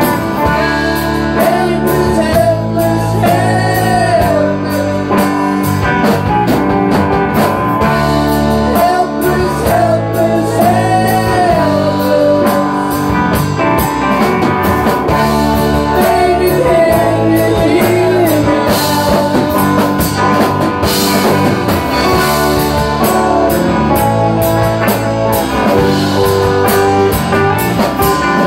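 Small live band jamming on electric guitars, playing a steady groove with a voice singing over it.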